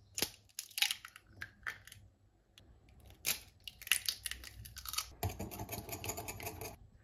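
Eggs cracked on the rim of a glass bowl, with sharp taps and crackling shell near the start and again a few seconds in. Then a fork beats the eggs in the glass bowl: a fast run of clicking near the end.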